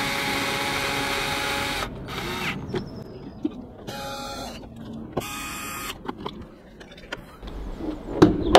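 Cordless drill-driver running steadily for about two seconds as it drives a Torx screw into the plastic engine cover, then a few short bursts. Near the end, a loud thump as the car's bonnet is pushed shut.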